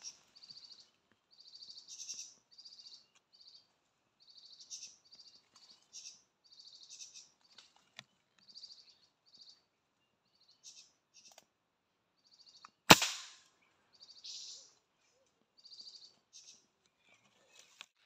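Small birds chirping in short, high calls throughout. About 13 seconds in comes one sharp crack, the loudest sound, with a brief tail.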